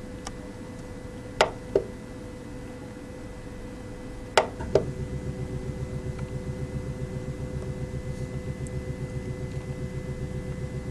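Z Corporation ZPrinter 350 powder 3D printer starting up: two pairs of mechanical clicks, then about halfway in a motor starts running with a fast, even pulsing over a steady hum, as the machine fills its build bed with powder.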